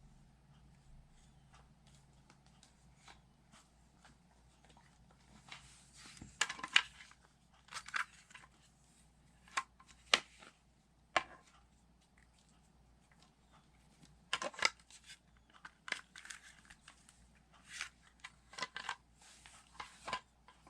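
Small plastic toy pieces being handled: irregular clicks, taps and short rustles, starting about six seconds in and coming in clusters.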